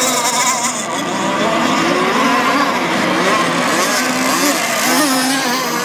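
Several radio-controlled sport hydro racing boats running flat out on small two-stroke engines, their high whine rising and falling in pitch as they race and turn.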